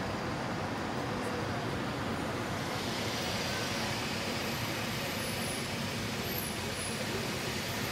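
Steady city street ambience: a constant wash of road traffic noise, a little brighter from about three seconds in.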